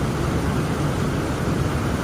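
Heavy rain falling steadily: a dense, even rush of noise weighted toward the low end, with a deep rumble underneath.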